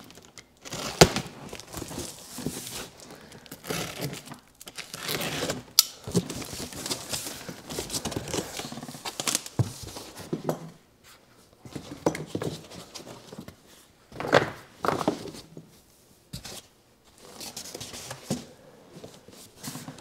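Unpacking a large cardboard carton: a box cutter slicing through packing tape, then cardboard flaps being pulled open and foam packing being lifted and shifted, a run of irregular rustling, scraping and tearing sounds with a few sharp knocks.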